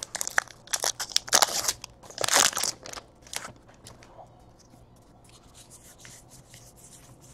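Trading-card pack wrapper and cards being handled: several sharp crinkling, tearing-like rustles in the first three seconds, then only faint taps and slides of cards.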